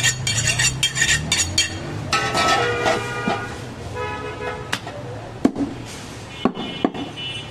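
Large butcher's knife chopping goat meat on a wooden log block: a quick run of chops in the first two seconds, then a few single strikes between about five and seven seconds in. Steady pitched tones, like a horn or music, sound in between.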